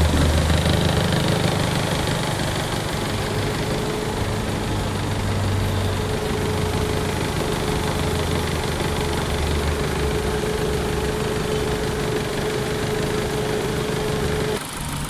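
Maruti Suzuki Dzire's petrol engine idling steadily, the engine the customer reports as misfiring. The running sound drops away suddenly near the end.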